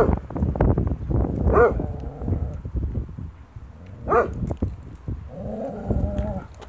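German Shorthaired Pointer barking at its own shadow: three short, sharp barks a second or two apart, with low growling between them and a longer, drawn-out call near the end.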